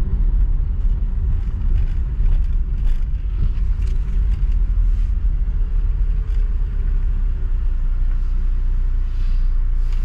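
Steady low rumble of a 2001 Honda Civic's engine and tyres, heard from inside the cabin as the car is driven slowly.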